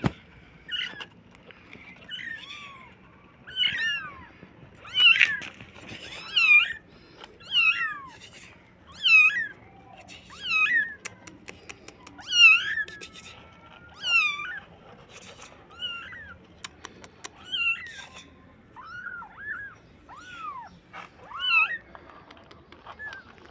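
Very young kittens, eyes still closed, mewing over and over in thin, high-pitched cries, roughly one a second, sometimes two at once.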